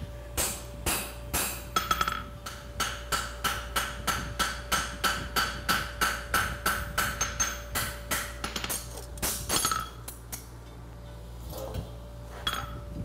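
Farrier's hand hammer forging a steel horseshoe on an anvil: a steady run of ringing blows, about three a second, then a pause and a few more strikes near the end.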